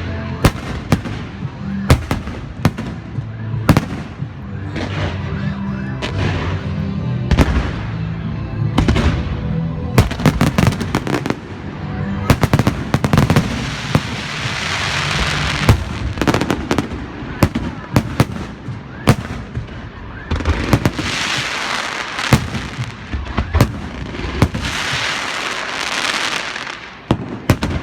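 Beehive fireworks: a dense barrage of bottle rockets and firecrackers, with irregular sharp bangs throughout and swells of rocket hissing about halfway through and twice more near the end.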